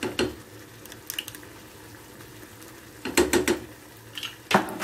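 Spoons knocking and scraping against a saucepan as tomato paste is worked into simmering tomato sauce: scattered clinks, a quick cluster of them about three seconds in and another knock near the end, over a faint steady sizzle.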